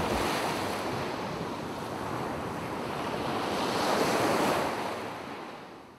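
Ocean surf: waves washing on a shore, swelling to a peak about four seconds in and then fading out.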